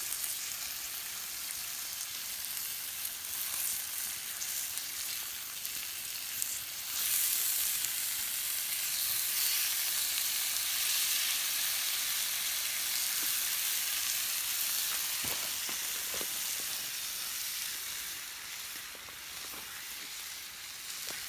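Meat sizzling as it fries in a metal pan over a wood fire, a steady hiss that grows louder about seven seconds in and eases off near the end. A few light knocks come about fifteen seconds in.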